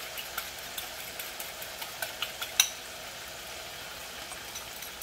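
Food sizzling as it fries in oil in a pan, a steady hiss, with a few light clicks of a utensil against the pan and one sharper knock about two and a half seconds in.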